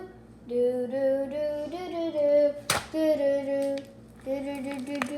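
A girl singing a tune with held notes and short breaks, with one sharp click about two and a half seconds in.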